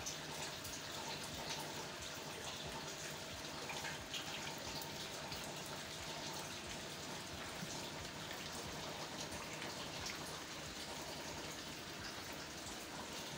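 Steady rain falling on leaves and nearby roofs, with many close drops heard as small, sharp ticks over an even hiss.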